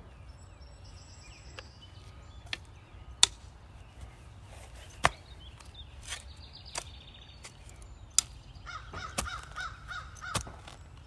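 Short-handled garden spade chopping into soil and turf, a sharp strike every second or two, the loudest about three seconds in. Birds call in the background, with a quick run of repeated notes near the end.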